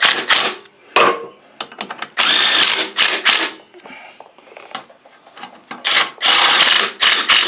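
Red cordless driver spinning a socket to run bolts down into the crankcase cover of a Kohler Command Pro V-twin engine. It goes in short runs: a quick stutter at the start, a brief hit about a second in, a longer run about two seconds in, and another near the end.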